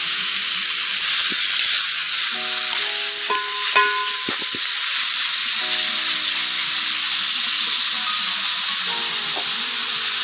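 Raw pork sizzling in a hot pot, a loud, even hiss.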